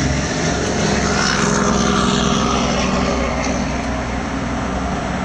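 Diesel locomotive engines rumbling steadily as the units approach, swelling briefly about a second in and then easing off a little.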